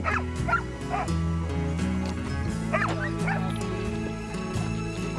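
Background music with steady low notes, over which sled dogs give several short yips and barks: a cluster in the first second and two more about three seconds in.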